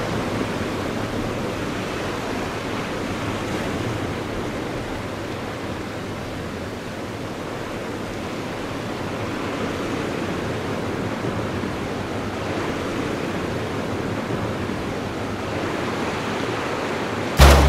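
Ocean surf washing in a steady, slowly swelling rush. A sudden loud thump comes right at the end.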